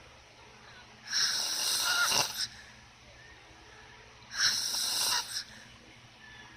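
Snoring in slow, regular breaths: two snores, each about a second long, roughly three seconds apart, with quiet between.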